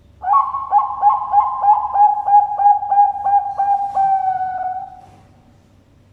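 Zebra dove (Bangkok perkutut) singing one full phrase: a quick run of about a dozen staccato coos, roughly three a second, ending in a longer drawn-out coo.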